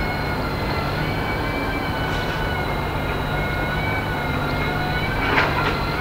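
Tracked excavator running: a steady engine drone with a high whine held over it, and a short clatter about five seconds in.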